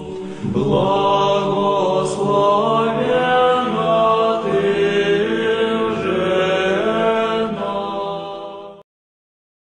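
Slow, sustained vocal chanting, Orthodox-style, with long held notes that glide in pitch. It cuts off suddenly near the end.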